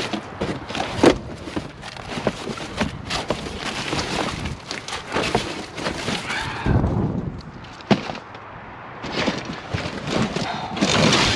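Rummaging by hand through a box of scrap and debris: irregular clattering, knocking and rustling, with sharp knocks about a second in and near eight seconds.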